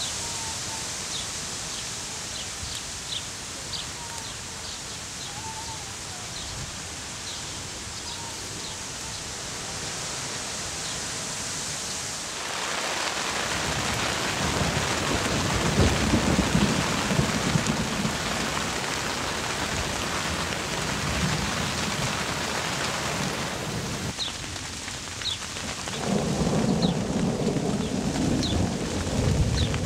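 Thunderstorm: a steady hiss that turns into heavy rain about twelve seconds in, pelting the lake surface and the ground, with deep rolls of thunder rumbling near the middle and again near the end.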